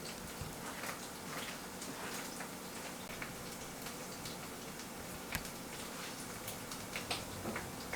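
Food cooking in a pot or pan: scattered light pops and ticks over a low steady hiss.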